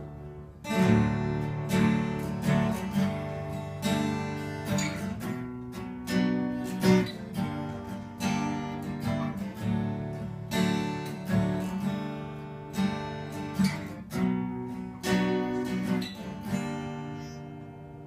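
Guitar strummed, playing a run of chords in a steady rhythm.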